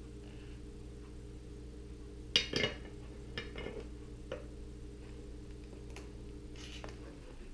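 Small metallic clinks and taps from handling soldering tools and connectors, loudest in a quick cluster about two and a half seconds in, with a few lighter clicks after, over a steady low electrical hum that cuts off at the end.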